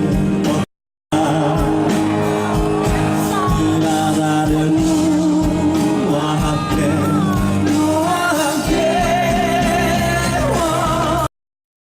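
Live band music with singing, heard from among the audience. The sound drops out completely twice, briefly about a second in and again near the end: gaps in a damaged video file that was recovered.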